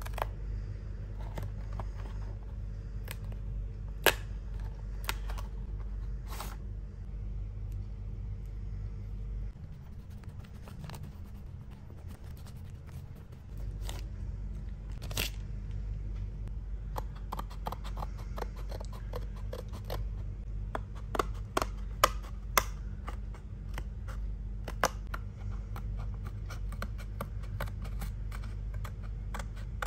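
Cardboard toy boxes and small plastic figure parts being handled: scattered clicks, taps and rustling, thickest in the middle stretch, over a steady low hum. Near the end, scissors cut into a cardboard box.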